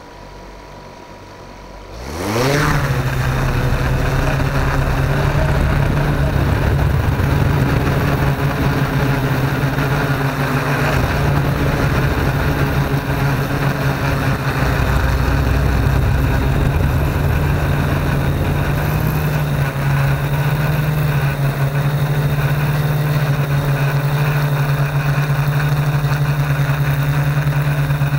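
Yuneec Q500 Typhoon quadcopter's four electric motors spinning up about two seconds in with a quick rising whine, then holding a loud, steady hum as the drone lifts off and flies, heard from its own onboard camera.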